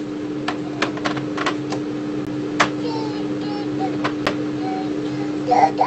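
A steady hum with a string of sharp clicks and knocks of kitchenware being handled, ending in a louder clatter.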